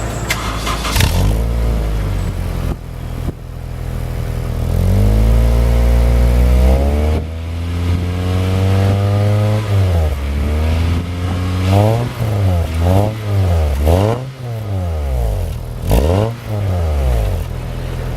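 Car exhaust fitted with an active tail silencer whose valve spring has been swapped for a thinner 1.4 mm one, heard as the engine is revved. It idles, then climbs and holds, drops back about seven seconds in, and in the second half is blipped in a run of quick rises and falls.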